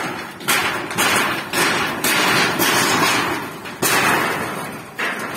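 Ridged roofing sheets being levered and dragged loose, clattering and scraping as a house is torn down. Sudden hits come about half a second in, just before four seconds and at five seconds, each followed by a long rattling scrape.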